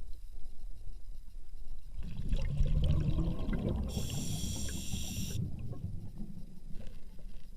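Water splashing and trickling, with a brief high-pitched squeal about four seconds in.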